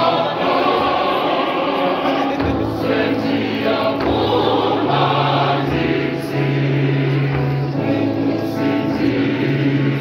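Church choir of women's and men's voices singing together, with long held low notes under the melody.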